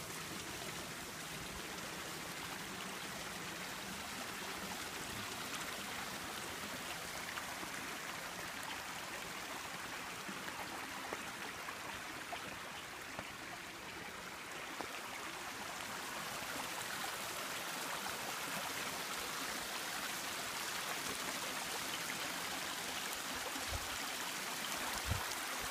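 A small waterfall on a stream, water rushing and splashing steadily; the rush grows a little louder about two-thirds of the way through. A couple of short low thumps come near the end.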